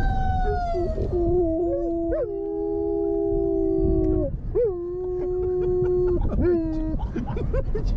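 German Shepherd and Siberian husky howling together in a car: a series of long, steady howls, two voices overlapping in the middle, over the car's low road rumble.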